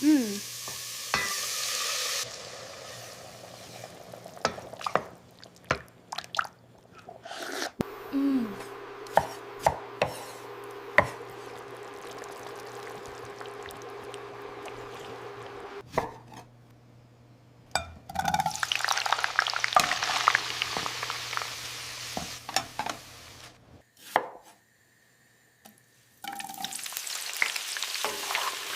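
Kitchen cooking sounds in several short cut-together clips: food sizzling in a hot pan, with utensils clinking and knocking against pots during stirring. A steady hum runs for several seconds in the middle.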